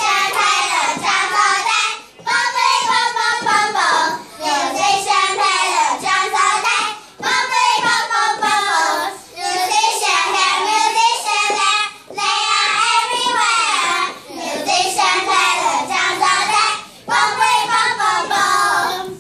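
A group of young children singing a song together in unison, in phrases of two or three seconds with short breaks between them.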